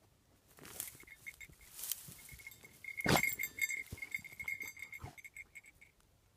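Basset hound whining in a thin, high, wavering tone with her nose down a burrow, excited at the animal she is hunting inside. Bursts of sniffing break in, the loudest about three seconds in.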